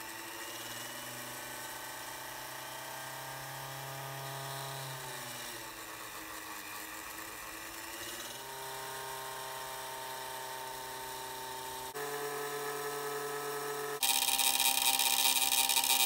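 Electric motor spinning a disc of magnets under a water-filled copper coil, a steady whining hum whose pitch sags and then steps up and down. About fourteen seconds in, a loud hiss breaks in as the water in the coil boils and steam jets from the pipe's open end.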